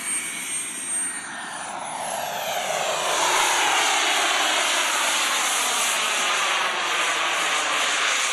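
Radio-controlled model jet flying a low pass and pulling up into a climb, its engine running with a steady rushing noise. A high whine rises in pitch a second or two in, and the engine noise grows louder and then holds.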